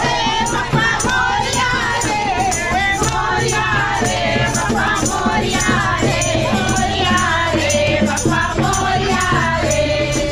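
A group of voices singing together over a steady beat of rattling percussion, as festival music of the Ganesh Chaturthi procession.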